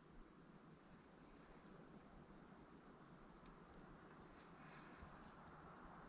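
Near silence: faint outdoor ambience with soft high-pitched chirps every second or so.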